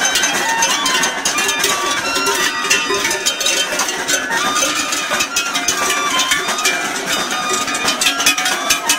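Large collar bells on a herd of cattle clanging unevenly as the cows walk, many bells ringing at once with frequent sharp strikes.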